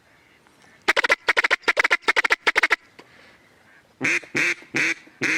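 Mallard duck call blown in a hen's cadence to bring in approaching ducks: a fast run of short quacks, then four separate, longer quacks near the end.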